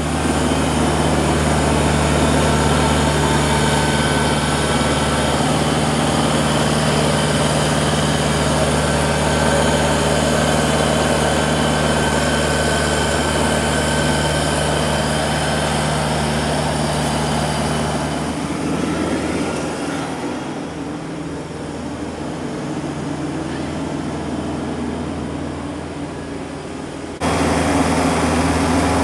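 Kubota compact tractor's diesel engine running at a steady speed. About two-thirds of the way through the engine sound drops and thins, then comes back abruptly at full level near the end.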